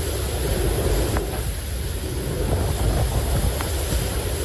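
Storm wind blowing steadily against the microphone, with heavy, uneven low rumbling from gusts and a few faint ticks.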